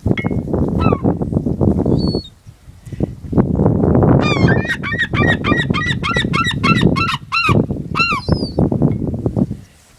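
Geese honking in a fast series of calls, about three to four a second from around four seconds in to about seven and a half seconds, with a few more near eight seconds, over constant low noise.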